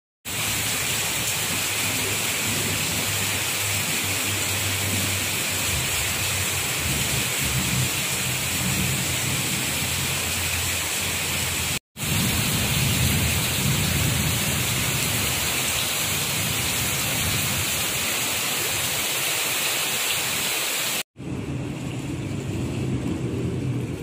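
Heavy rain falling on floodwater that covers a street, a steady hiss. It breaks off twice, and after the second break the hiss is quieter.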